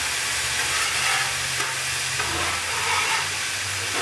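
Vegetables sizzling on a Blackstone flat-top griddle, a steady hiss, while a metal spatula pushes them across the hot steel.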